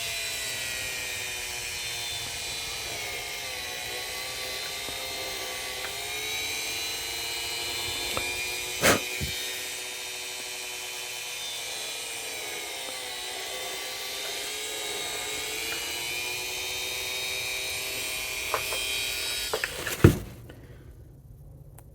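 Small high-speed electric rotary tool running steadily as it drills out the horn bells of a plastic model kit, its pitch sagging and recovering a few times as the bit takes load. A click about nine seconds in; the motor cuts off sharply with a click near the end.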